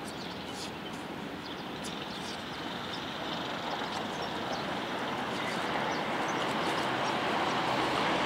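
Steady rushing outdoor noise that grows gradually louder, with faint high chirps in the first few seconds.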